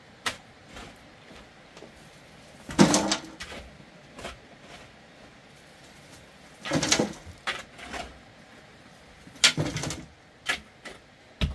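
A shovel scraping into dirt and rubble and dumping it into a steel wheelbarrow, three scoops about three seconds apart, with smaller knocks between.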